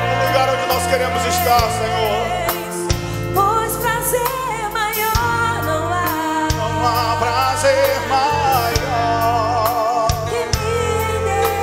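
Live gospel worship music: a woman's voice sings long notes with wide vibrato over a band with bass, drums and cymbals.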